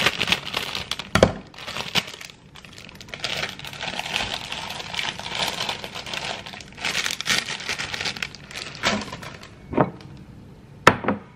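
Plastic microwave rice steam bag crinkling as cooked rice is shaken out of it into a ceramic bowl. A few sharp knocks and clinks of the bowl against the countertop, the loudest near the end as the bowl is picked up and set down.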